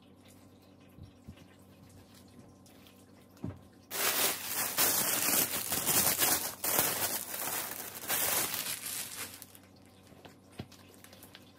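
Clear plastic poly bag crinkling and rustling for about five seconds, starting about four seconds in, as a knitted garment is pulled out of it.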